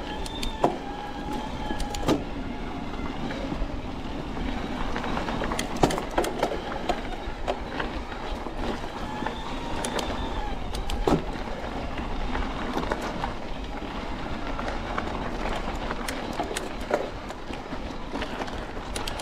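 Electric mountain bike rolling over a rough dirt trail: a steady rumble of tyres and frame with frequent sharp clicks and knocks from chain and bike over bumps. A wavering whine comes and goes near the start and again about ten seconds in.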